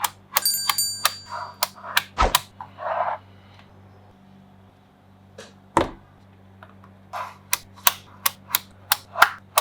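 Small magnetic balls snapping together in sharp clicks, a few of them early on leaving a brief high metallic ring. After a quiet pause in the middle comes a quick run of clicks, about three a second.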